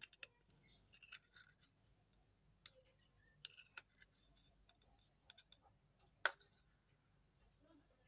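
Faint scraping and clicking of a metal spoon stirring in a small plastic cup, with one sharper click about six seconds in.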